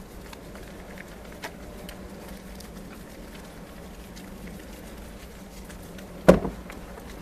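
Bar of soap being lathered with water: soft wet squishing with faint small clicks, and one loud sudden wet sound about six seconds in.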